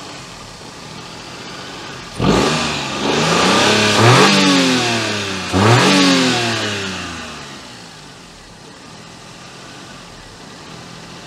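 Daihatsu Charade's swapped-in petrol engine idling, then suddenly revving up twice, the pitch climbing and dropping each time before it settles back to idle. The engine is running badly, a fault the owner traces to the throttle position sensor, leaving it on a default map.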